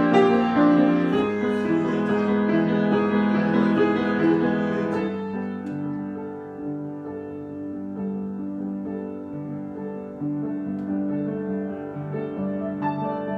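Piano improvisation: full, ringing chords for about five seconds, then the playing thins and grows quieter into a gentle passage of repeated low notes.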